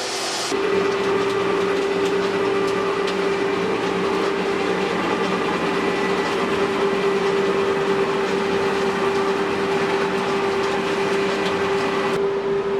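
A machine motor running steadily, a constant hum at one pitch over an even hiss.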